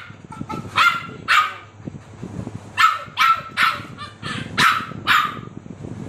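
Pit bull barking in sharp single barks: two, then after a pause a quicker run of about six.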